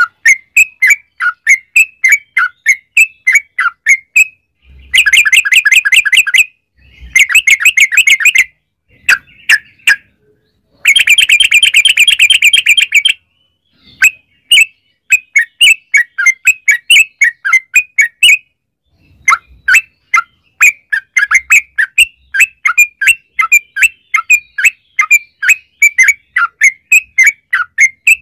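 Yellow-vented bulbul (trucukan) calling: a run of short chirping notes, about three or four a second, broken three times by long, rapid rattling trills (the 'ropel') about five, seven and eleven seconds in.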